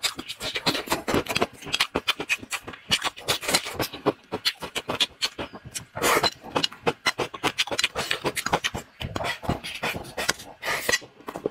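A man chewing and smacking his lips over fried crayfish tails and rice: a dense, irregular run of quick wet mouth clicks.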